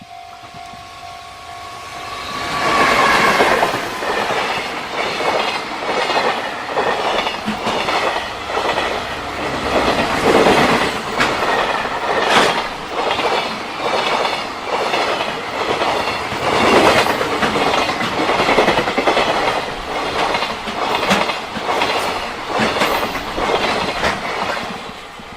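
JR Freight freight train passing for about twenty seconds, its wagons' wheels clacking in steady runs over the rail joints. A level-crossing warning bell rings steadily at first and is drowned out once the train arrives, a couple of seconds in.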